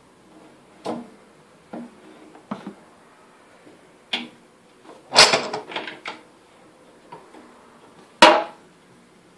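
A wooden block knocking on a drift set in a drill press quill's slot, to drive out a jammed Morse taper arbour. The knocks are sharp and irregularly spaced, with a quick run of several about five seconds in and the loudest single knock near the end.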